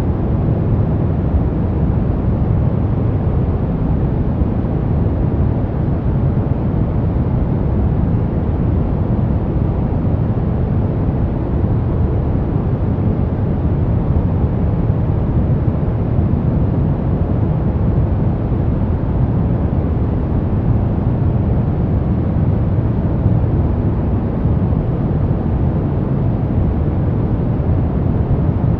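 Steady brown noise: an even, deep rumbling hiss weighted toward the bass, with no changes or breaks.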